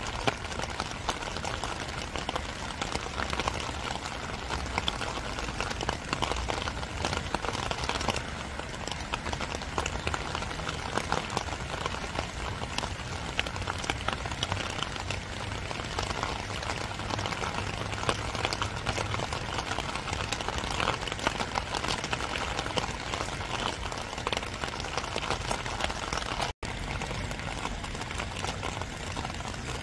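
Steady rain falling, a dense even patter of drops. The sound cuts out for an instant near the end.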